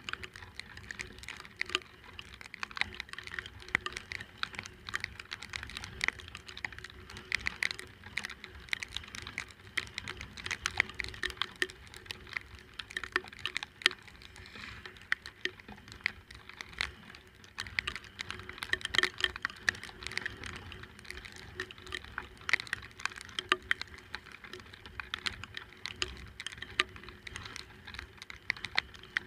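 Rain hitting close to the microphone: a dense, irregular crackle of small clicks that goes on throughout.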